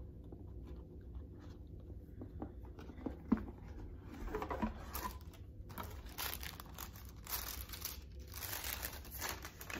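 A cardboard gift box being handled, with one sharp knock about a third of the way in. Then the tissue paper inside crinkles and rustles in repeated bursts as it is unfolded.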